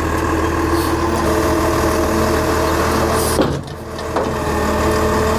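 Heavy diesel machinery engine running steadily. Its sound dips with a brief falling pitch about three and a half seconds in, then picks back up.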